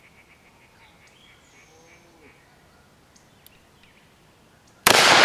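A .44 Magnum Smith & Wesson revolver fires once near the end, fired double action by a straight trigger pull: a single sudden, very loud shot that rings on and echoes as it fades.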